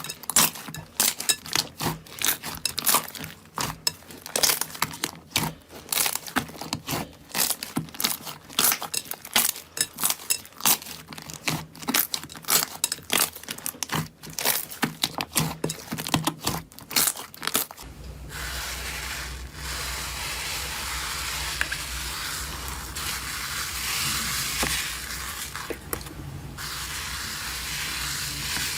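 Slime being squeezed and pressed by hand, giving off rapid, irregular crackling and popping. About two-thirds of the way through it gives way suddenly to a steady hiss.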